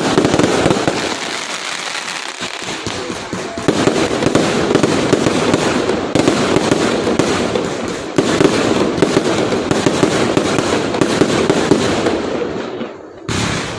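Fireworks going off in a dense, continuous barrage of pops and crackles, easing off near the end.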